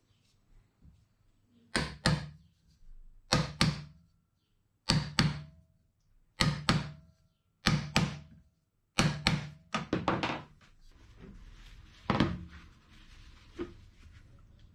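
An old car shock absorber's steel tube and rod knocked up and down against a bench vise: sharp metal clunks in quick pairs, about seven pairs roughly a second and a half apart, some leaving a faint ring. A duller knock and a light tap come near the end.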